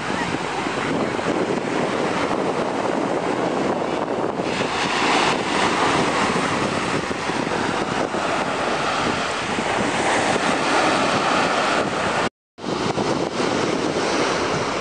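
Small sea waves breaking and washing up a sandy beach, with wind buffeting the microphone. The sound cuts out for a split second about twelve seconds in.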